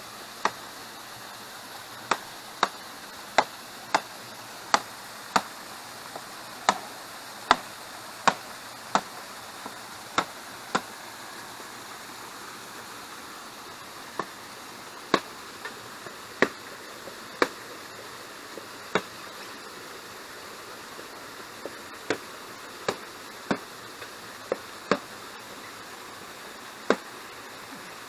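Bamboo being struck again and again with a tool while building a shelter: sharp chopping or hammering strikes, about one to two a second in runs with short pauses. The steady rush of a waterfall runs underneath.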